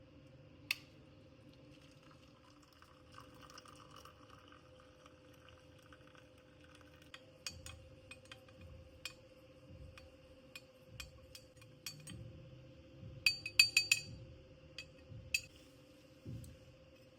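Glassware and dishes clinking now and then as they are handled, with a quick run of sharp clinks about two-thirds of the way through, over a steady faint hum.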